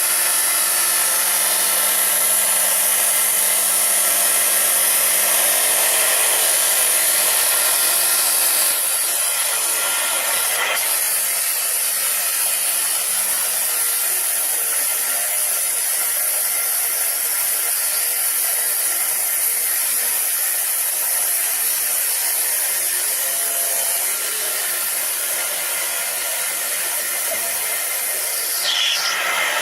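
Diamond saw blade on a copying saw cutting into hard red porphyry: a steady, loud grinding whine. The lower hum changes about nine seconds in.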